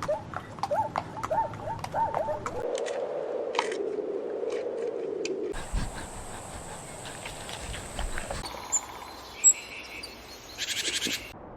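Several short clips of animal calls cut together: first a quick run of short, repeated pitched calls, then a drawn-out noisy call, then a high steady tone with a few clicks, and a brief buzzing burst near the end.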